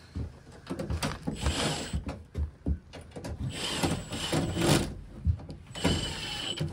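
Cordless drill/driver run in three short bursts with a high motor whine and a ratcheting rattle, driving the screw of a wire clamp tight.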